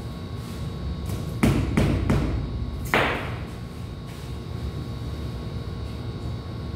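Rubber mallet knocking on a freshly laid ceramic floor tile: three quick knocks about a second and a half in, then a louder knock about three seconds in that rings briefly.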